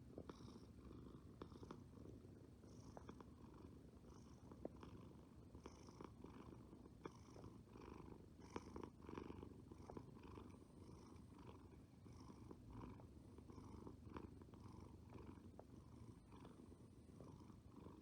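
A domestic cat purring faintly and steadily, the purr swelling and easing about once a second with its breathing.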